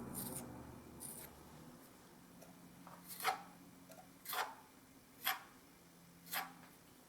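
A small filling knife scraping filler onto a wall in short strokes. The strokes are faint at first, then four sharper scrapes come about a second apart in the second half.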